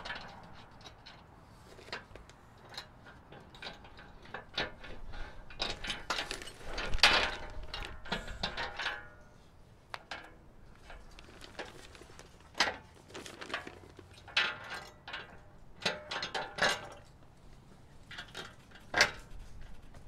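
Irregular small metal clinks, clicks and knocks as bolts and a metal intercooler guard are handled and the mounting bolts are started by hand under the truck's front end, busiest around the middle of the stretch.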